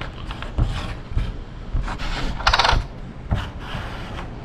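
Plastic button-football discs being flicked and clicking against each other and the game table: scattered sharp taps, with a brief louder rasp about two and a half seconds in.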